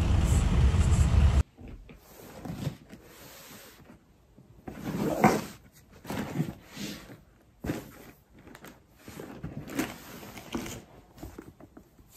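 Road traffic rumbling for the first second and a half, cut off suddenly. Then soft, irregular rustling and light bumps as a cotton drawstring dust bag is handled on top of a cardboard box.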